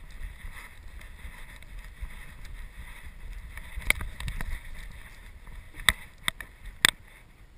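Low rumble of wind and movement on a dog-mounted GoPro's microphone, then several sharp clicks from about four seconds in as a golden retriever's claws tap on wooden deck boards.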